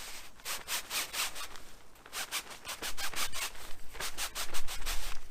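Plastic packaging on a landing net being handled and pulled, making quick rubbing and scraping strokes in three short runs.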